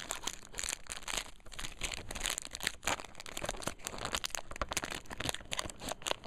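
Foil booster-pack wrapper crinkling and tearing as it is pulled open by hand, a dense run of irregular crackles.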